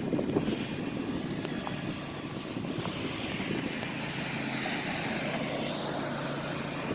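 Snowblower engine running with a steady drone, clearest from about two seconds in.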